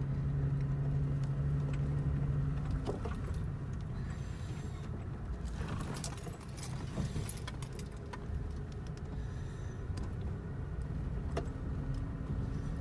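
A truck driving slowly over a rough dirt trail: a steady low engine hum that fades about three seconds in, over a continuous rumble, with scattered rattles and clicks as the truck bounces.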